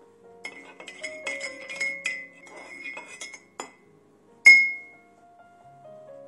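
Metal spoon stirring in a ceramic cup, clinking rapidly against its sides, then one loud, ringing clink about four and a half seconds in. Soft background music plays throughout.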